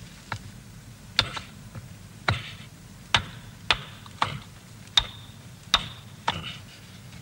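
Hammer striking a chisel, about nine sharp blows at an uneven pace, several leaving a short metallic ring.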